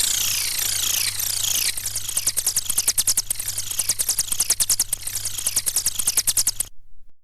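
Dancehall DJ sound effect: a series of overlapping whistle-like tones, each falling quickly in pitch, turning about a second and a half in into a fast clicking rattle of about eight clicks a second, over a steady low hum. It cuts off suddenly near the end.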